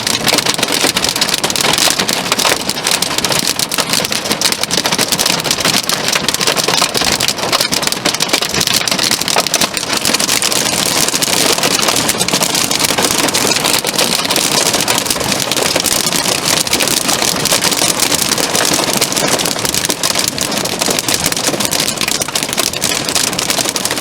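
Heavy thunderstorm rain falling, a loud, steady, dense patter of drops striking a hard surface.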